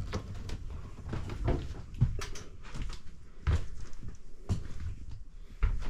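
Scattered knocks and thumps at uneven intervals, about eight of them, over a low rumble.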